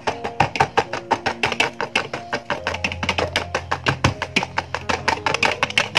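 Wire whisk clicking rapidly against a plastic bowl, about eight or nine clicks a second, as it beats sunflower oil into egg and sugar batter. Background music with held notes plays under it.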